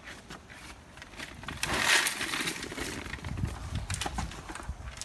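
Gravel and a loaded wheelbarrow being handled: a short rush of shifting, scraping gravel about two seconds in, then low rumbling and light knocks.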